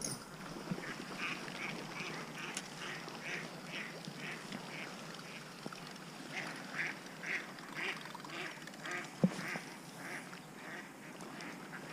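A duck quacking in a long series of short, evenly spaced calls, about two a second, with a single sharp knock about nine seconds in.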